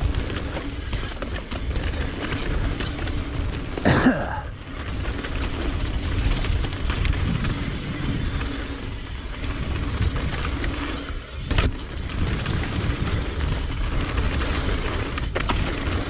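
Mountain bike ridden downhill on a dirt trail: wind rushing over the microphone while the tyres roll and the bike rattles over rough ground. A brief louder burst comes about four seconds in and a sharp knock later on.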